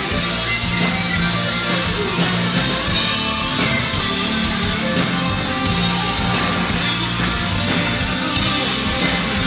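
A live rock band playing loud and steady, led by two distorted electric guitars over a sustained low bass line.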